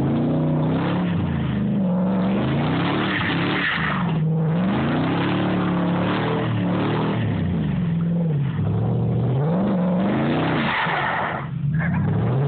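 Pickup truck engine driven hard through mud, revving up and dropping back again and again. The throttle eases off briefly about four seconds in and again near the end.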